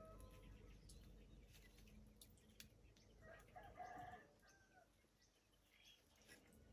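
A rooster crowing once, faintly, about three seconds in, the call lasting about a second, with a few light scattered clicks.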